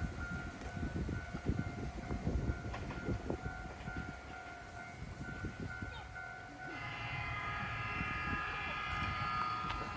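A Ryutetsu Nagareyama Line train approaching: about two-thirds of the way in, a steady whine of several high tones sets in and the level rises. Before that, a faint high tone pulses about twice a second over low rumbling.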